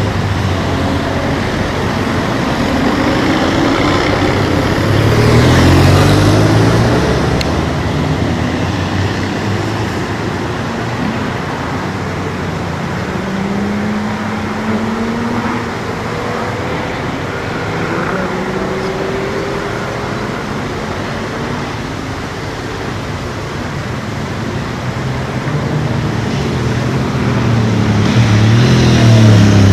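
Porsche sports cars and other vehicles driving past one after another through hairpin bends. Their engines rev up and ease off in rising and falling glides over steady road noise, loudest about six seconds in and again at the end.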